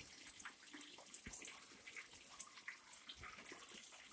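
Breaded chicken breast fillets frying in hot oil in a stainless-steel pot: a steady sizzle with many small crackles.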